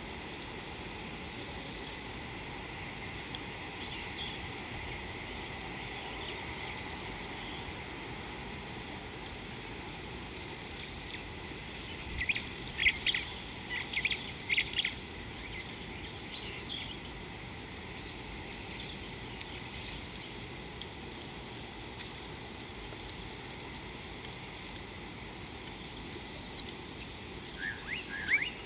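An insect chirping steadily, a short high-pitched pulse about once a second, over a faint outdoor hiss. A quick run of bird calls breaks in about twelve seconds in, and a few more near the end.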